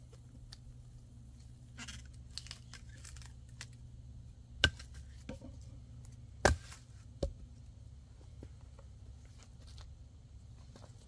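Pieces of wood being handled between axe strokes: light crackling and rustling, then three sharp wooden knocks in the middle.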